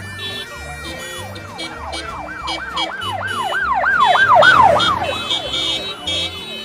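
A siren yelping, its pitch sweeping up and down about three times a second. It grows louder to a peak about four and a half seconds in, then fades.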